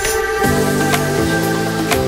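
Background music: electronic track with held synth chords, a bass line and a steady beat.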